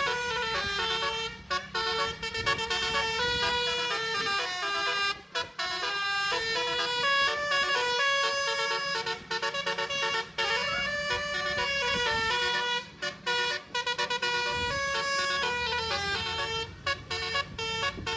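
A bus's basuri (telolet) multi-tone horn playing a melody: a run of horn notes that step from pitch to pitch, several sounding together, broken by a few short pauses, over a low rumble.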